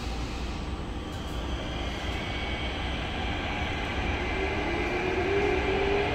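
Inside the car of an SMRT T251 metro train pulling away from a station: a steady low running rumble that grows louder, joined about four seconds in by a motor whine that climbs in pitch as the train picks up speed.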